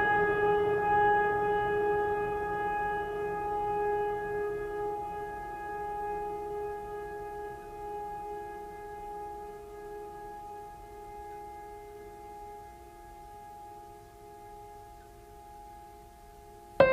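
Background music: one long held note with many overtones that slowly fades away, and a new note comes in at the very end.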